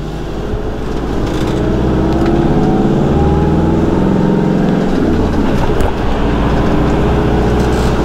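Camper van engine and road noise heard from inside the cab while driving uphill. The engine pitch rises over the first few seconds, then holds steady.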